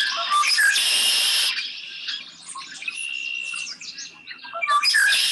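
Male red-winged blackbird singing its conk-la-ree song twice, each ending in a long harsh buzzy trill, with short chirps and whistled notes between. Its call is an early sign of spring.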